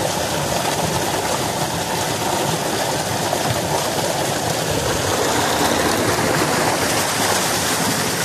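Water gushing steadily from a tubewell's plastic outlet pipe and splashing into the tank below, an even, unbroken rush.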